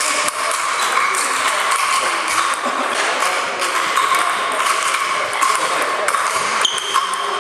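Table tennis rally played with sandpaper bats: repeated light clicks of the ball on bat and table, over steady background chatter of voices.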